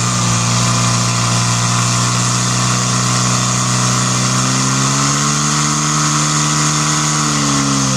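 Portable fire-sport pump engine running at high revs under load, pumping water through the attack hoses. It is loud and steady; its pitch rises a little about five seconds in and drops near the end.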